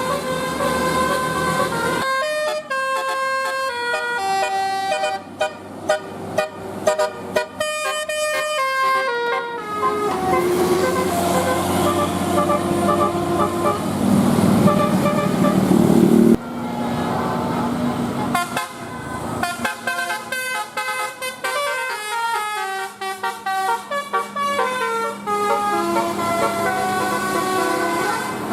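Bus 'telolet' musical air horns (Basuri type) playing quick tunes of several stepped notes, one horn clip after another. Around the middle a louder rush of noise with a low hum builds to the loudest point, then cuts off abruptly.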